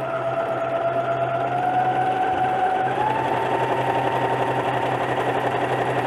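Elgin Genius Plus JX4035 domestic sewing machine running at steady speed, stitching a decorative zigzag pattern (the K stitch) in fabric, its motor whine stepping up slightly in pitch about halfway through.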